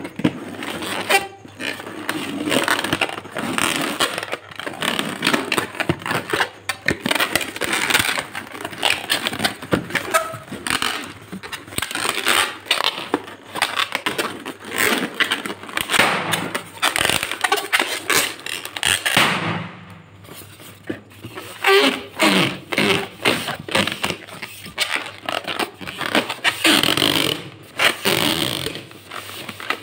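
Hands rubbing and squeezing inflated latex twisting balloons, making irregular rubbing and scraping noises of fingers on the rubber.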